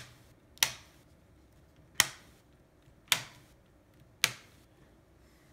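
Plastic screen bezel of an HP Envy laptop being pressed onto the display lid, its clips snapping into place one by one. There are five sharp snaps, about a second apart.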